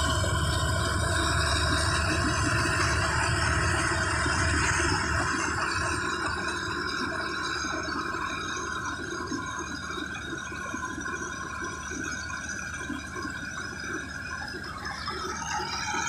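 Preet combine harvester running as it cuts rice: a steady mechanical drone with several constant whining tones over a deep rumble. The low rumble fades after about five seconds as the machine moves away.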